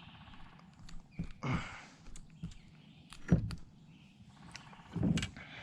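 Scattered knocks, clicks and creaks of handling gear in a kayak while a freshly caught bass is unhooked, the loudest knock about three seconds in.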